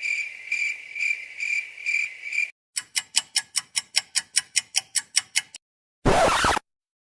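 Three short sound effects in a row. First comes a high, pulsing chirp, like crickets, repeating about twice a second. Then comes a fast, even run of sharp clicks, about five a second, and finally a brief noisy burst near the end.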